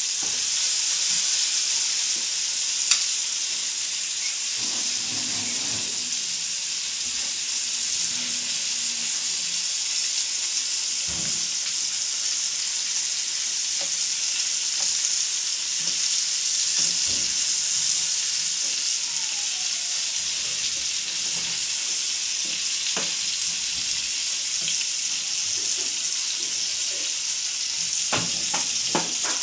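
Chicken pieces frying in hot oil in a pan, a steady high sizzle. A few knocks and scrapes of a spatula against the pan as the pieces are turned, the clearest about 11 seconds in and near the end.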